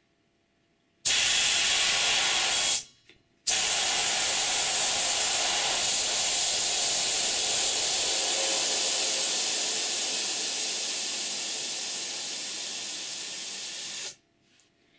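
A jet of compressed air hissing at a hard-drive-platter Tesla turbine that stays still under its load. The hiss starts about a second in and breaks off briefly near three seconds. It then runs again, slowly fading, and cuts off suddenly near the end.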